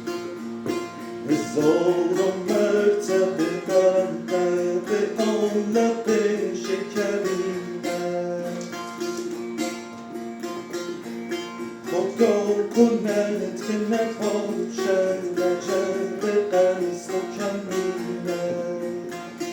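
Setar, the four-string Persian long-necked lute, played solo in an improvisation in dastgah-e Shur: quick runs of plucked notes over ringing drone strings. Flurries of rapid notes come about a second and a half in and again about twelve seconds in.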